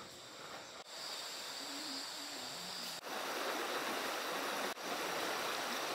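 Steady rushing of a river's flowing water, broken by three brief dropouts.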